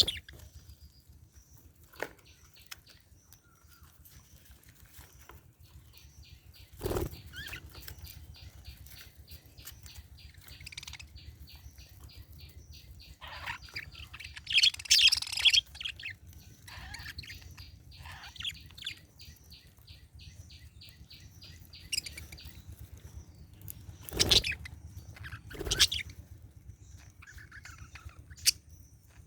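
Pet budgerigar chattering: a long run of fast, even clicks with scattered chirps, and a loud burst of chirping about halfway. A few short thumps stand out.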